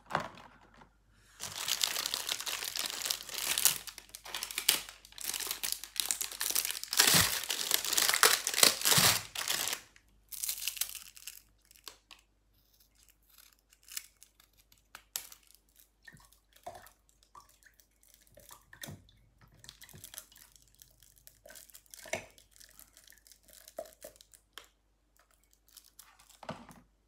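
Milk-carton packaging being handled: several seconds of loud crinkling and tearing of plastic wrap and paper cartons, then scattered small snips and clicks as scissors cut open the small cartons.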